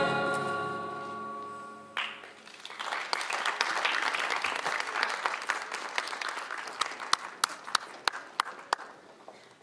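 The closing chord of a stage musical number fades out, and about two seconds in an audience breaks into applause, which thins to a few scattered claps near the end.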